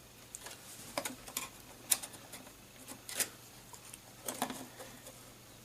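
Small sharp plastic clicks and taps, scattered and irregular, as connectors and latches inside a Blu-ray player are unlocked and handled.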